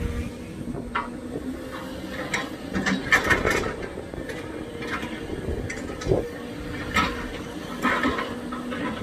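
Hydraulic excavator working soil: its engine runs steadily under a series of metal clanks and knocks, with a thick cluster of clanks about three seconds in.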